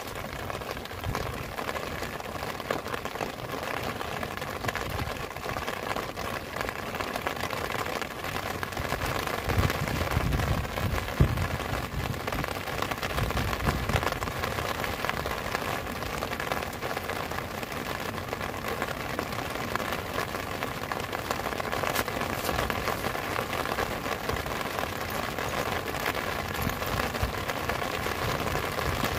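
Steady heavy rain falling on grass and ground, with a few low rumbles about ten and fourteen seconds in.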